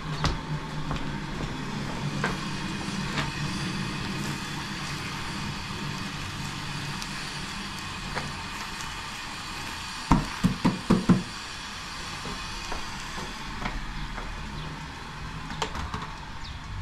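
Rice being tipped from a plastic basin into a large metal cooking pot, with a quick run of about five knocks about ten seconds in.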